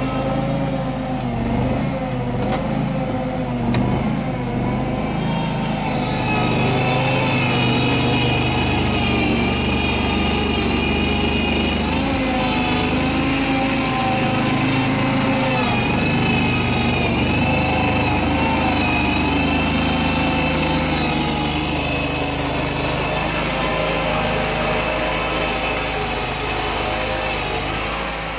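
Small engine of a home-made wheel loader running steadily under load while it pushes snow, its pitch wavering slightly as it works. It gets a little louder about six seconds in.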